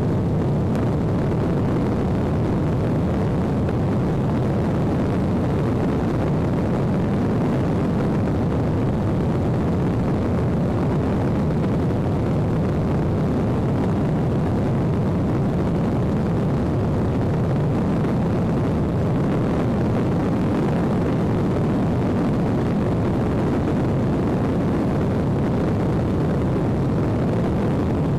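Airplane in flight heard from inside the cabin: a steady, unbroken rush of engine and airflow noise, deepest and strongest in the low range.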